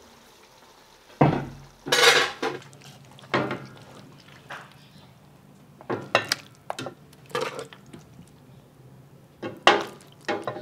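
Metal ladle clanking and scraping against a metal cooking pot and a glass serving bowl as saucy chicken is ladled out, in irregular knocks about a second apart.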